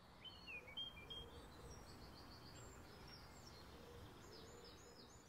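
Faint outdoor ambience: small birds chirping in quick, high, short calls over a low background hum.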